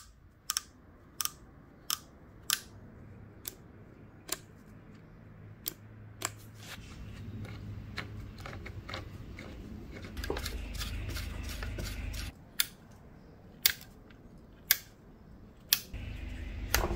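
Sharp plastic and metal clicks from the adjustment knobs, depth-stop rod and levers of a Ryobi RRT1600-S plunge router being turned and worked by hand, coming every half second or so at first, then sparser. A low rumble comes in twice, about ten seconds in and near the end.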